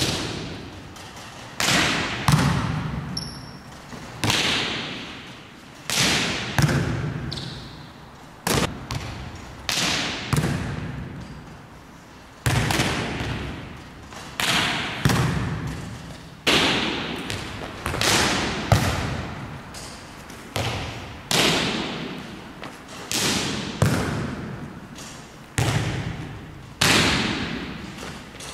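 Volleyballs struck again and again, about one sharp smack a second, each ringing out with a long gymnasium echo: balls hit down from a coaching stand and passed back on the player's forearms.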